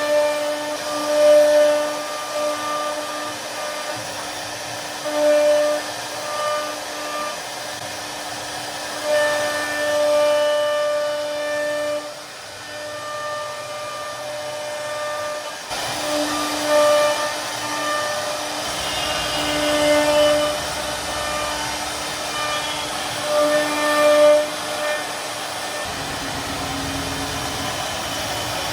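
CNC router spindle running under load while a carving bit cuts wood: a steady whine with a hiss of cutting over it. The whine swells and fades as the cutter bites, and dips briefly in pitch near the end.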